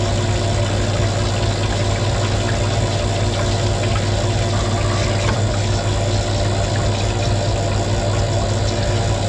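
Cylinder honing machine running between honing strokes: a steady low electric motor hum, with its coolant pump running and cutting fluid pouring from the nozzle into the cylinder bore.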